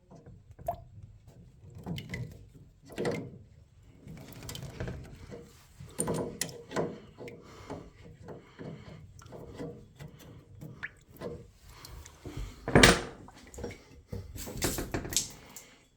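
Irregular clicks, knocks and handling noises, with one loud knock about 13 seconds in and a quick run of knocks shortly after.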